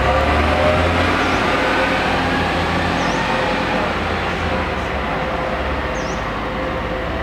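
Diesel engine of a double-decker bus pulling hard under full throttle as the bus climbs a ramp, the sound slowly fading as it draws away.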